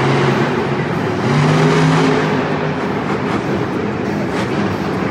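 Monster truck engines running and revving across the stadium floor, heard from high in the stands. A louder, steady engine note comes in about a second in and holds for about a second and a half.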